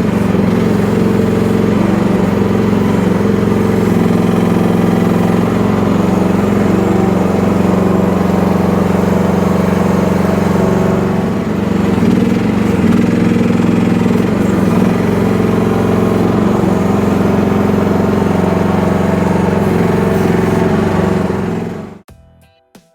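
Engine of an FF12 mini excavator running steadily, with a small dip in level about halfway through; it cuts off abruptly near the end.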